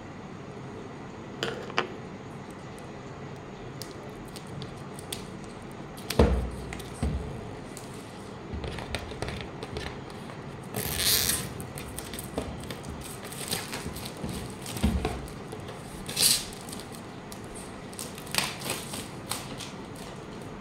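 Cardboard retail box being handled and turned over: scattered clicks and taps, short paper-like rustles and a couple of low thumps, around 6 and 15 seconds in.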